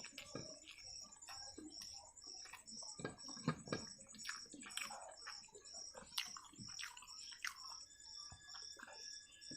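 Close-miked sounds of eating egg chow mein by hand: irregular wet chewing smacks and mouth clicks, with a couple of louder smacks about three and a half seconds in.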